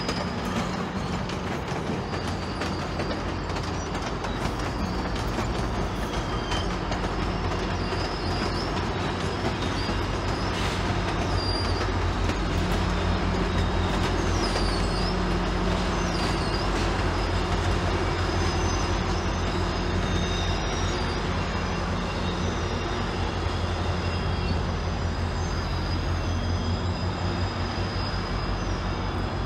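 GO Transit diesel locomotive GO 635 hauling bilevel coaches past, its engine running with a steady low drone over the rumble of the train. A thin, high steel-wheel squeal runs throughout, with short extra squeaks between about 6 and 16 seconds in.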